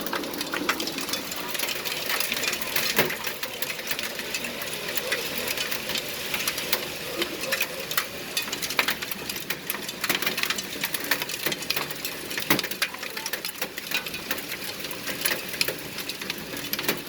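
Hail pelting down in a storm: a dense, irregular clatter of hailstones striking, over a steady hiss.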